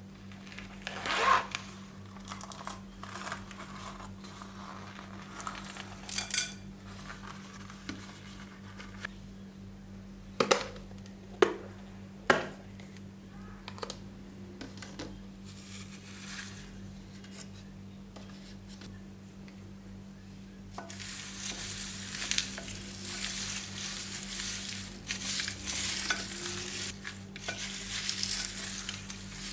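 Slime being mixed by hand: scattered sticky pops and clicks, then, about two-thirds of the way in, a steady crackling squish as it is worked continuously.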